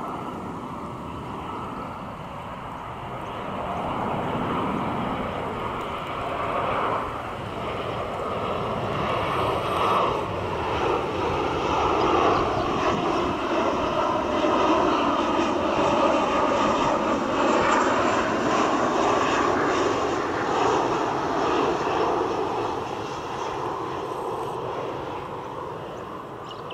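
Boeing 737-800 airliner's CFM56-7B jet engines on final approach: a steady roar that builds to its loudest about halfway through as the jet passes, then fades away.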